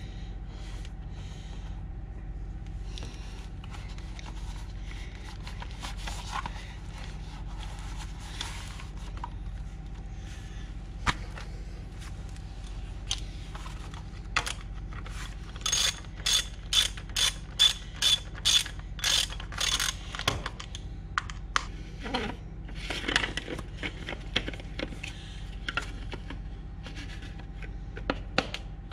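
A hand tool clicking: an even run of about ten sharp metallic clicks, roughly two a second, past the middle, with scattered knocks and scrapes before and after over a steady low hum.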